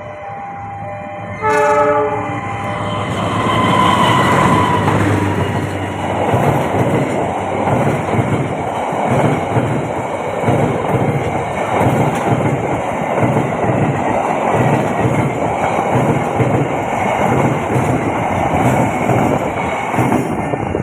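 A train horn sounds in one short blast about a second and a half in. Then a train rolls across the railway bridge, its wheels clattering in a steady rhythm over the rail joints.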